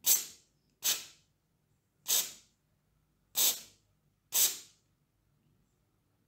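Aerosol spray can discharging through a thin red straw nozzle in five short hissing bursts, each about half a second long, spaced roughly a second apart, with the last one about four and a half seconds in.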